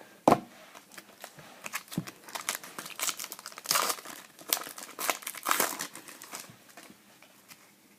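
Trading card pack wrapper crinkling as it is handled and opened, a dense run of crackles after a sharp tap just after the start.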